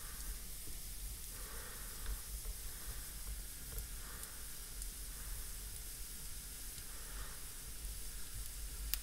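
Burning firewood and embers in a fireplace hissing and sizzling, the hiss swelling now and then, with a few faint crackles and one sharp pop near the end.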